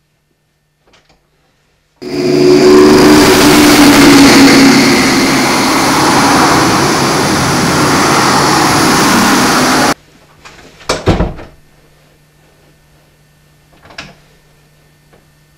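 Freight train passing, a loud, even noise of the cars rolling by that starts abruptly and cuts off abruptly after about eight seconds. Afterwards a faint low hum with a few sharp knocks.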